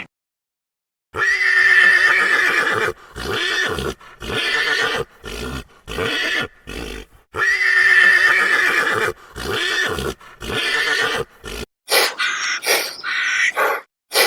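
Horse whinnying twice: each time a long call followed by a run of shorter, falling calls. Near the end come several short, harsh calls from another animal.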